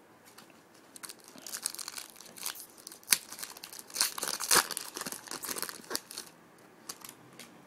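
Trading cards and their packaging being handled: crinkling and rustling in irregular bursts, with a few sharp clicks, for several seconds.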